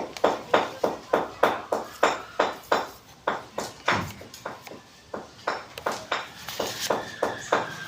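Repeated sharp hammer strikes, about three to four a second with a slight ring after each, thinning out briefly about four seconds in.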